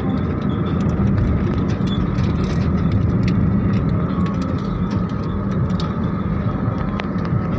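Steady road and engine noise of a moving car, heard inside its cabin, low and even, with scattered light clicks and rattles.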